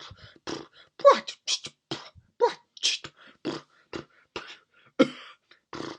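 A person's mouth imitation of a sputtering, coughing motor: irregular spluttering bursts, two or three a second, a few sliding down in pitch, the loudest about a second in.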